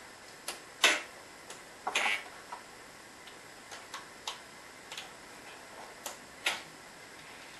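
A series of sharp, irregularly spaced clicks and light knocks, about a dozen in all, from hands working the model railway layout. The loudest comes just under a second in, with a cluster about two seconds in and another near six and a half seconds.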